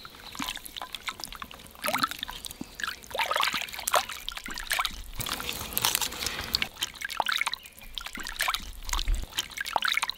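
Hands working a whole raw chicken in a bowl of soy-sauce marinade: irregular wet sloshing, squelching and dribbling of the liquid as the bird is rubbed and turned.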